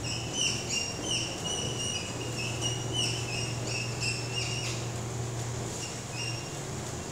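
Whiteboard marker squeaking against the board as handwriting is written: short high squeaks, several a second, thinning out after about five seconds.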